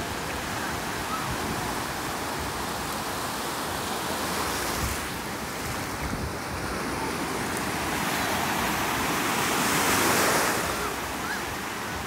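Ocean waves breaking and surf washing up the sand in a steady rush. One wave swells to the loudest crash near the end, then eases.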